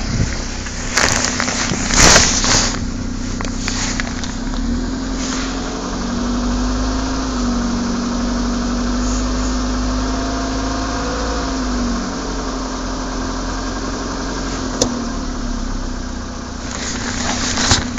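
Škoda Fabia II's CFNA 1.6 four-cylinder petrol engine running after a cold start in hard frost, with an unexplained knock. Its note rises about five seconds in, holds, and drops back about twelve seconds in. A few loud clattering knocks come between one and two and a half seconds in, and a single sharp click near fifteen seconds.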